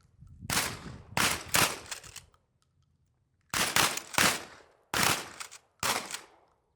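A string of shotgun blasts from several shooters firing on a line, about seven shots at uneven intervals with a pause of about a second midway.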